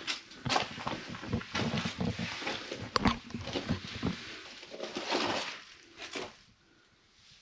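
Footsteps crunching irregularly over loose rubble and stones, with a sharp click about three seconds in; the steps die away near the end.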